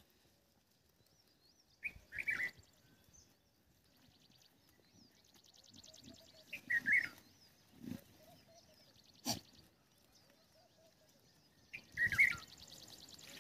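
A bird calls three times, about five seconds apart, each a short sharp phrase. A fast high trill runs behind the later calls, and there is a single sharp click a little past the middle. Soft rustling sits low under it all.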